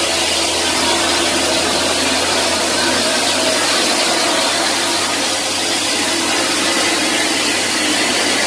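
Concrete mixer truck running, a loud steady mechanical noise with a low hum that fades about three seconds in.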